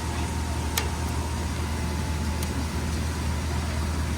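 Steady low mechanical hum of running commercial refrigeration equipment, with a faint steady whine over it. A sharp click comes just under a second in, and a fainter tick follows later.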